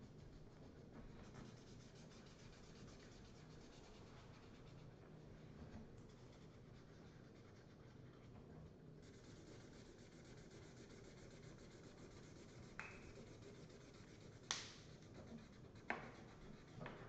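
Faint scratching and rubbing of felt-tip markers drawing on paper, with three sharp clicks of a marker cap in the last few seconds.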